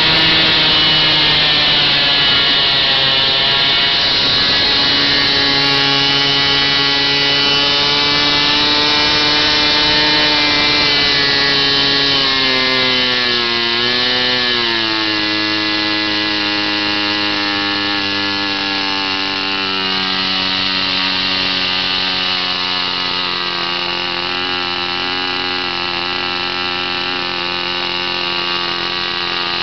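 Single-cylinder model-airplane glow engine running steadily during its break-in, propeller spinning. About halfway through its pitch dips and wavers, then settles slightly lower.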